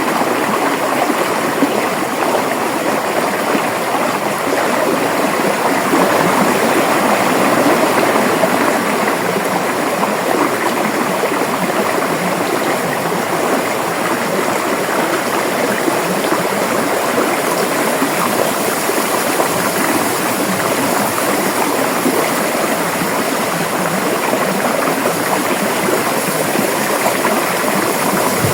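A river flowing steadily over rocks: continuous rushing and gurgling water.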